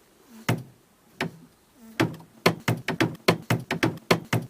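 Rabbit thumping its hind legs on the floor of its cage: a few spaced thumps, then a quicker rhythmic run of about five a second from halfway through. The thumping is a rabbit's alarm signal, warning others of danger.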